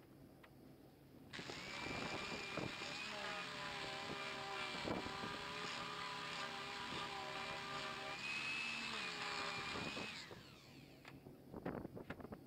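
Electric random orbital sander switched on about a second in and run against the redgum and epoxy table top, a steady motor whine with a gritty sanding hiss, for about nine seconds. It is then switched off and its whine falls away as it spins down, followed by a few light knocks.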